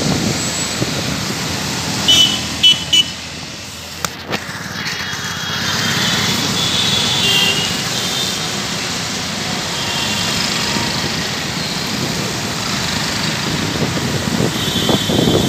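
Busy road traffic on a wet road: a steady rush of engines and tyres on water, with three short horn toots about two seconds in and another horn sounding near the end.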